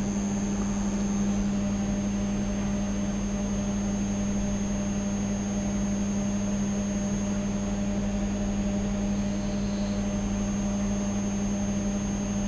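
Steady electrical hum with an even background hiss and a thin, high, constant whine above it.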